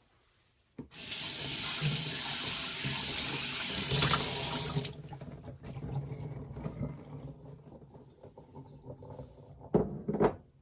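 Kitchen sink tap running. The water comes on hard about a second in and runs for about four seconds, then goes on more quietly with light clatter, and a few knocks follow near the end.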